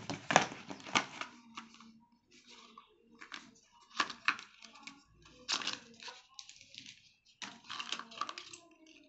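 Cardboard box parts and paper inserts being handled: the tray lifted and set down, card sliding and rubbing against card, in a string of short scrapes, rustles and sharp clicks with brief pauses between them.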